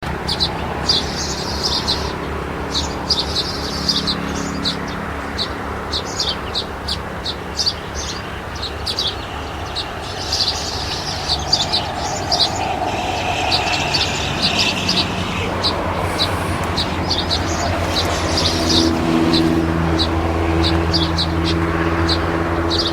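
Birds chirping in many short, quick, high calls, over a steady low hum.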